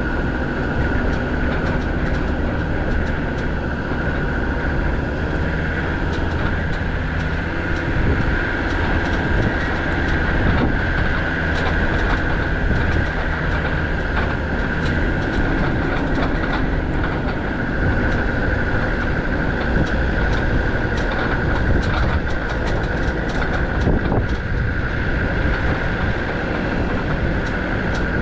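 Land Rover Defender TD5 90's five-cylinder turbodiesel running steadily as the vehicle drives off-road, with a steady high whine and frequent rattles and clunks, busier in the second half.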